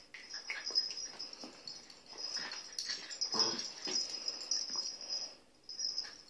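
An adult dog and puppies play-fighting: scuffling and snuffling with short whimpers and yips, and one louder yelp about three and a half seconds in. A steady high-pitched whine runs underneath.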